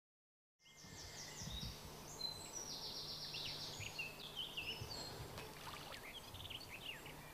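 Silence for about half a second, then several small woodland birds singing and calling: quick chirps and rapid trilled phrases overlapping. A faint steady low hum sits beneath.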